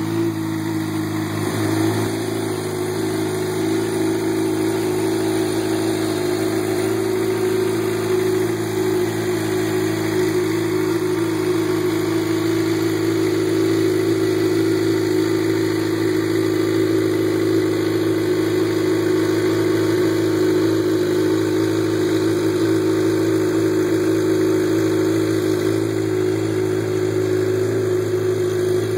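2011 Suzuki GSX-R750 inline-four motorcycle engine idling steadily while warming up after a winter cold start.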